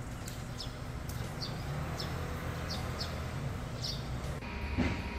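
A small bird chirping again and again, short falling chirps about one or two a second, over a steady low rumble of outdoor background noise. Near the end a steady high tone comes in.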